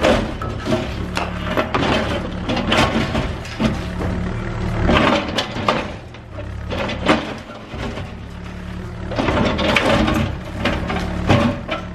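Cat 305E2 mini excavator's diesel engine running under load, with repeated cracking and crunching as gunite concrete and rebar are broken apart.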